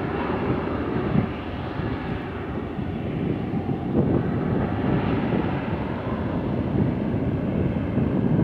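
Learjet 45 business jet's rear-mounted turbofan engines running as it taxis, a steady jet rumble that grows a little louder about four seconds in.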